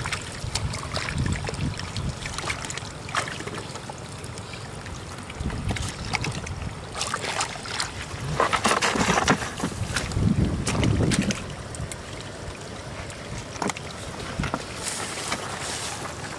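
Wind rumbling on the microphone over irregular splashing and sloshing of hands working in shallow muddy water, with a louder patch of splashing and handling noise a little past the middle.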